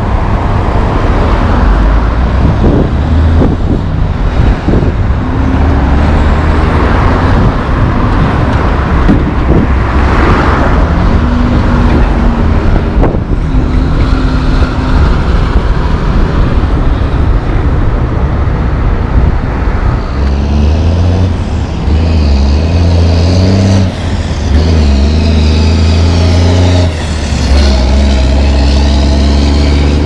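Highway traffic going by: cars and pickups passing with engine and tyre noise. In the last third a heavy diesel truck engine runs loud and low, its pitch rising and falling as it pulls away, with a few short dips in level.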